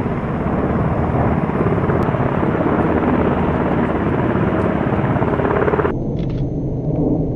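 Steady rotor chop of H-60 Black Hawk-type helicopters hovering. About six seconds in it cuts off suddenly to a deeper rumble of a pair of A-10 jets passing overhead.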